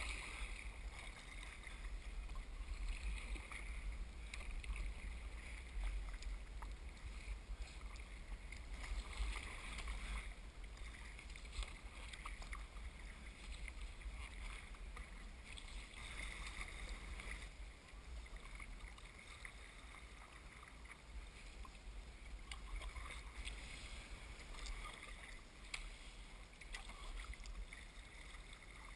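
Kayak paddle blades dipping and pulling through the water in a steady rhythm of strokes, each with a splash and swish, and water washing along the hull, over a low steady rumble.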